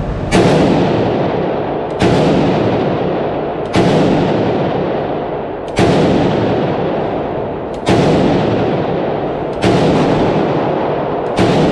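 Romanian G-kit AK-47 in 7.62×39 fired shot by shot, about seven shots roughly two seconds apart, each followed by a long echoing decay in an indoor range.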